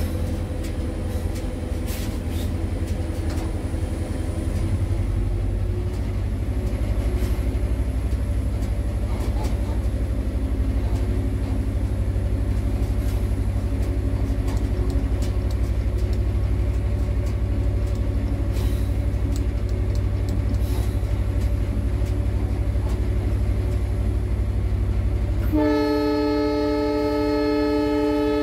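Inside the cab of an EMD GT46PAC (WDP4) diesel-electric locomotive under way: the 16-cylinder 710 diesel engine's steady low drone. Near the end the locomotive's horn starts one long, held blast.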